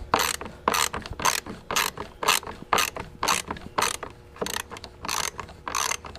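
Socket ratchet wrench clicking through short repeated strokes, about two a second, as it tightens a bolt on a lawnmower's engine cover.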